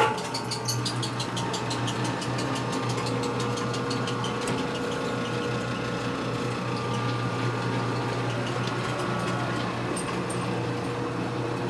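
Metal lathe starting up and running steadily, spinning a transmission gear part in a six-jaw chuck to check whether it runs true. A steady motor hum with a fast, regular ticking on top, clearest in the first few seconds.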